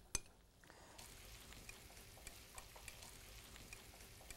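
Faint, steady sizzling of beef cubes browning and vegetables sautéing, with small pops through it. Two light clicks come right at the start.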